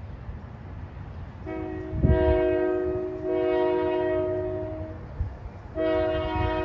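Union Pacific diesel locomotive's air horn sounding a multi-note chord in two long blasts, the first starting about a second and a half in and the second starting near the end after a short gap, over a low rumble.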